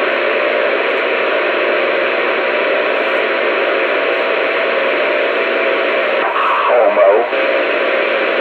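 Radio static: a steady hiss with a faint steady tone under it. About six and a half seconds in, a brief warbling sound cuts through.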